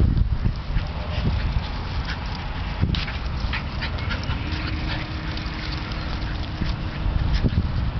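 A Scottish terrier and a Welsh terrier playing rough, with short dog yaps and whines, over a constant low rumble.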